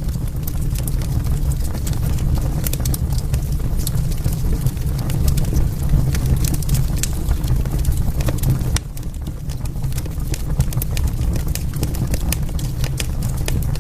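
Wood fire crackling in a fireplace: many sharp, irregular pops and snaps over a steady low rumble of burning flames.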